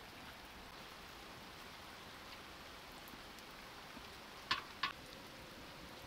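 Small wood fire crackling under a clay pan: a faint steady hiss with scattered little pops, and two sharp clicks close together about four and a half seconds in.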